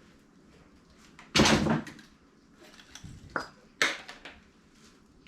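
Clatter of engine parts being handled during teardown: one loud clunk about a second and a half in, then two sharp clicks a little past the middle.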